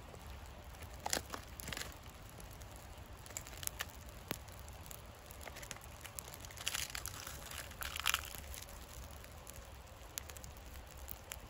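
Small birch-bark and twig fire crackling with scattered pops, with a few louder rustling, crunching bursts of dry leaves and twigs handled as the fire is fed, about a second in and again past the middle.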